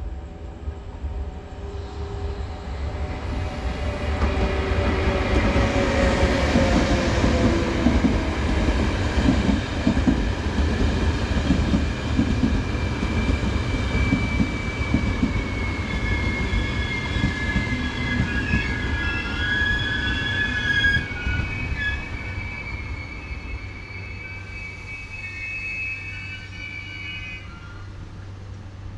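Locomotive-hauled passenger train passing: a falling pitch as the front goes by, then steady rhythmic wheel noise over the rails, and high wheel squeal from the coaches in the second half as the train pulls away and fades.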